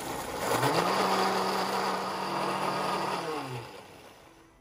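Countertop blender motor spinning up, running steadily as it churns a liquid raw-egg mixture, then winding down with a falling pitch and stopping a little before the end.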